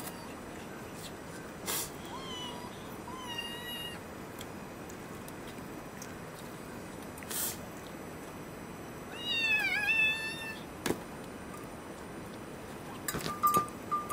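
Kitten meowing three times: two short faint meows, then a louder, longer meow with a wavering pitch about nine seconds in. A few sharp clicks and a cluster of clinks near the end.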